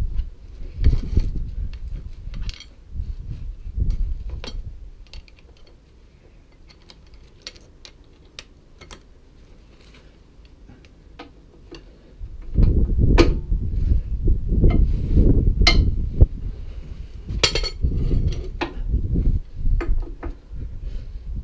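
Metal hand tools clinking and clicking as a socket wrench on a long extension bar is worked on the lower suspension arm bolts to break them loose. There is low rumbling in the first few seconds and again from about halfway to the end, with a quieter lull between.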